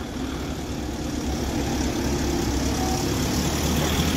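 Heavy lorry diesel engines running at low speed, a steady low rumble that grows a little louder as a truck crawls past close by near the end.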